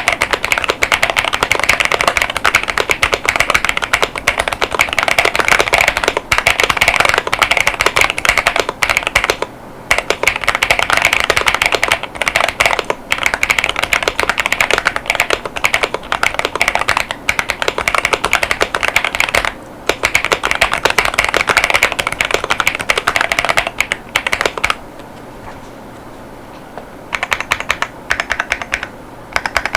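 Fast continuous typing on a mechanical keyboard with GamaKay Mars tactile 50gf switches and PBT keycaps: a dense run of keystroke clacks, with short breaks and one longer pause about 25 seconds in before the typing picks up again.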